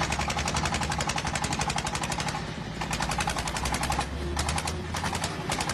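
Engine running with a fast, even train of firing pulses, an engine that will not shut off.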